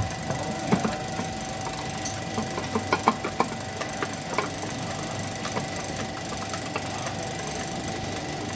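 Hand tools clinking and knocking on a car engine's parts at irregular intervals during disassembly, over a steady faint hum.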